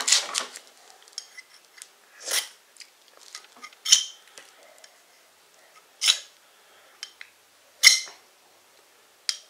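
A knife blade scraped hard down a ferro rod six times, one short rasping stroke every one and a half to two seconds with small metal ticks between, throwing sparks onto a pile of fatwood shavings that have not yet caught.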